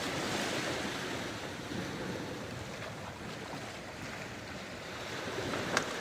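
Sea surf washing and surging, with strong wind buffeting the microphone; the noise swells and eases gently.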